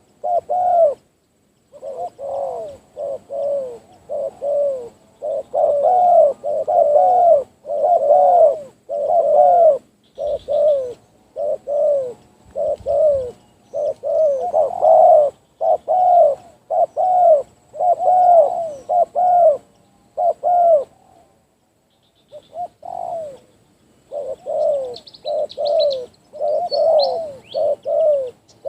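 Spotted dove cooing loudly, a big-voiced bird, in repeated phrases of short arched notes with a brief pause about three-quarters of the way through. Faint high chirps of small birds come in near the end.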